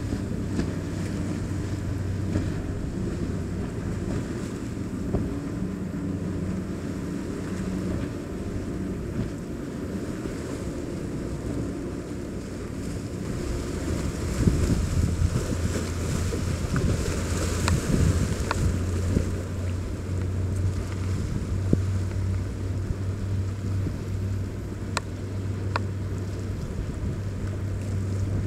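Motorboat engines droning steadily as boats run past at speed through the inlet, with wind noise on the microphone; the drone grows louder about halfway through.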